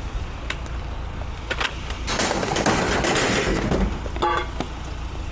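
Scrap being handled and loaded. A few sharp knocks, then a long rattling metal clatter about two seconds in, and a brief ringing clang near the end, all over the steady low rumble of a running vehicle engine.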